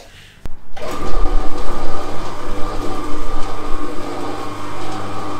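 A click, then an electric cement mixer starting up under a second in and running steadily, its drive giving a constant mechanical whine.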